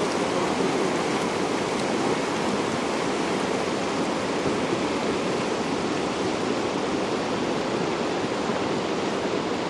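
Steady rushing of a fast glacier-fed mountain river.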